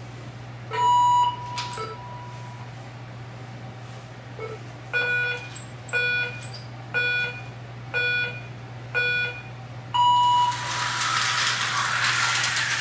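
Electronic slot car race timer sounding a start countdown: a beep, then five lower beeps a second apart and a longer, higher start tone. Right after the start tone the Tyco slot cars take off, their motors whirring around the track.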